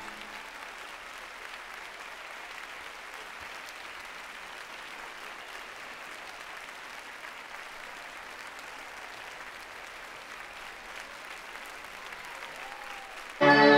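Concert audience applauding steadily between songs. The next song's music starts suddenly just before the end.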